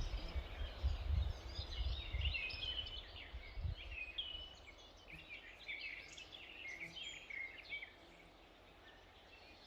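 Forest songbirds singing, many quick chirps and short whistled phrases overlapping, thinning toward the end, with a low rumble in the first four seconds.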